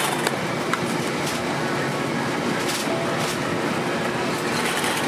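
Steady background noise of a busy street food stall, with a few sharp clicks scattered through it.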